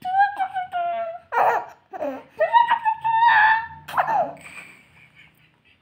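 Baby laughing and squealing in a string of high-pitched calls, the last one falling in pitch about four seconds in, then trailing off.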